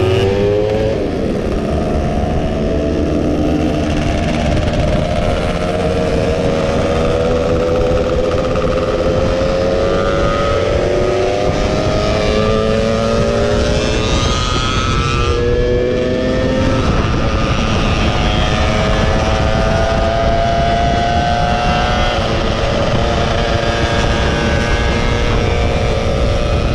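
Yamaha F1ZR two-stroke underbone motorcycle engine accelerating hard through the gears on road-race gear ratios. The pitch climbs steadily in each gear, with upshifts about a second in, around ten seconds in and around sixteen seconds in, over heavy wind rush.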